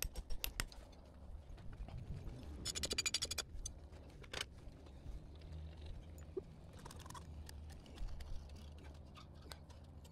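A few sharp hammer taps, then a short rapid rattle about three seconds in, like a hammer drill briefly biting into the concrete foundation, and scattered single knocks, over a steady low rumble.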